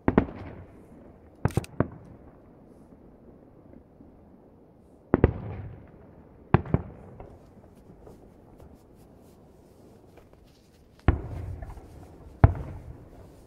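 Aerial firework shells bursting: a bang at the start, a quick cluster of three sharp cracks about a second and a half in, then pairs of bangs around five and six and a half seconds and again around eleven and twelve and a half seconds, each trailing off in a rumbling echo.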